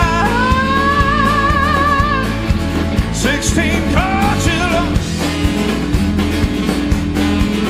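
Live rock-and-roll band playing with a steady drum beat, guitars and bass, while a singer holds long wordless notes with vibrato over it.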